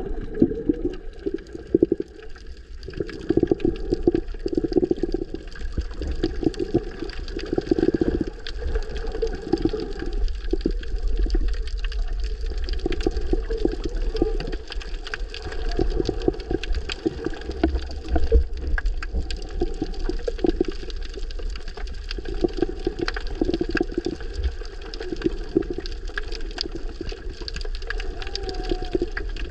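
Muffled underwater sound of moving water: an irregular surging and gurgling with a deep rumble, sprinkled with faint scattered clicks.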